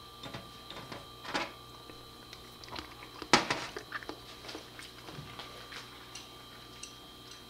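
Scattered small clicks and taps of someone eating sashimi with chopsticks, the loudest a sharp click about three and a half seconds in, over a faint steady hum.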